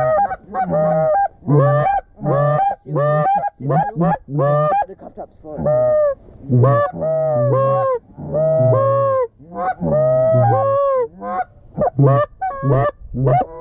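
Goose calls: loud honks and clucks in quick succession, about two a second, each breaking from a low note to a higher one. This is the calling used to work incoming geese toward the decoys.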